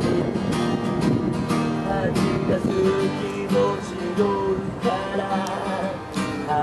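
Strummed acoustic guitar music with a melody line.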